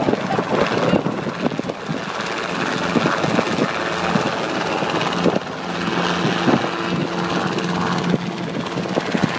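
Light two-bladed helicopter hovering, its rotor beating and engine humming steadily.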